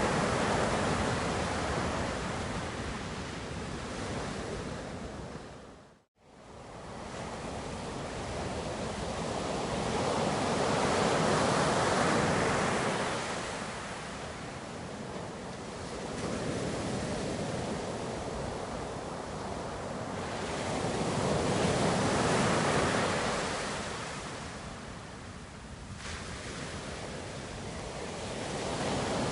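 Ocean surf: waves breaking and washing in, the rush swelling and fading in slow surges roughly every ten seconds. About six seconds in the sound cuts out for a split second, then resumes.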